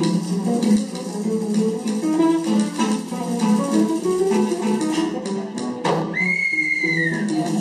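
Music with plucked guitar playing a rhythm of short notes. A high sliding note comes in near the end.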